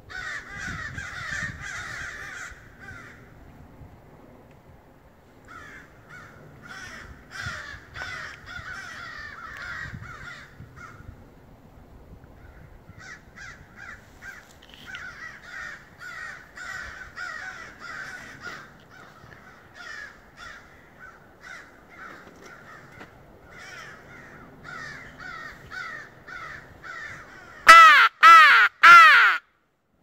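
Crows cawing overhead, many overlapping caws coming in bursts and pauses. Near the end come three much louder, drawn-out caws from close by, blown on a Primos Old Crow mouth call, which the crows are answering.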